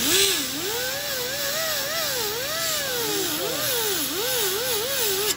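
Die grinder with a sanding disc whining against a brake rotor spinning on a brake lathe, its pitch wavering up and down as it bogs and recovers under hand pressure, over a hiss of abrasion. It is putting a non-directional swirl finish on the freshly machined rotor surface to break up the record-groove lathe finish. The grinder cuts off at the very end.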